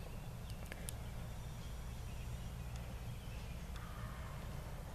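Quiet outdoor background: a steady low rumble, with a few faint clicks about half a second in and a faint high tone for about a second.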